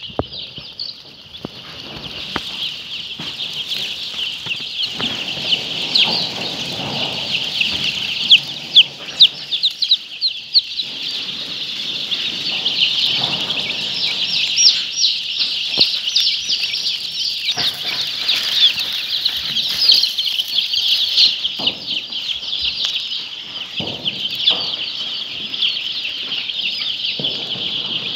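A large flock of poultry calling continuously: a dense, high-pitched chatter of many overlapping calls that builds over the first few seconds.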